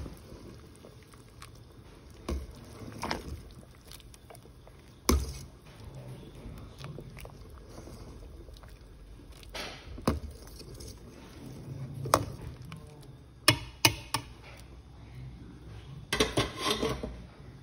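A ladle stirring a large pot of soup, the liquid sloshing and the ladle knocking against the side of the metal pot now and then, with a quick run of knocks near the end.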